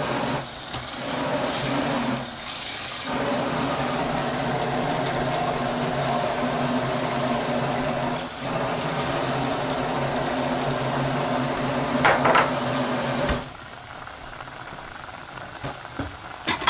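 Water running steadily for about thirteen seconds, then stopping, as water is added to thin out a pot of instant ramen whose broth has boiled down and turned too salty.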